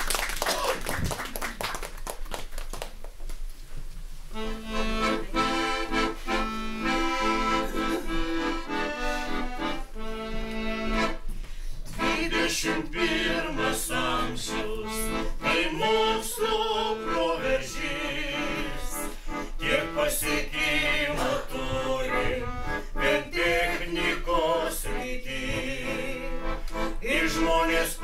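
Accordion starts playing about four seconds in, after a few clicks and knocks, holding chords and a melody. A group of voices joins in singing from about twelve seconds in: a folk ensemble performing a song with accordion accompaniment.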